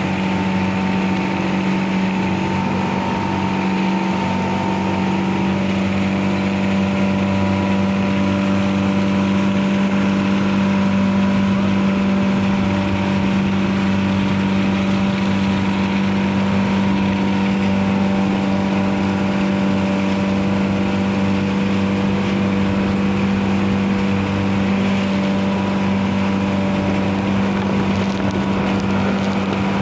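Outrigger boat's (bangka's) engine running steadily under way, a constant, unchanging drone.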